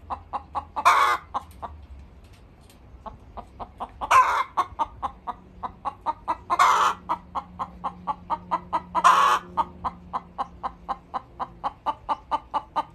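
A hen cackling loudly: a fast run of short clucks, about five a second, broken four times by a long, loud squawk.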